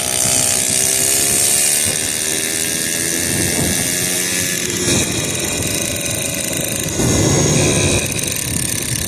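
Suzuki FA50 moped's small two-stroke engine running with a high, buzzy weed-eater-like sound, its revs rising over the first second or two, then rougher and noisier near the end.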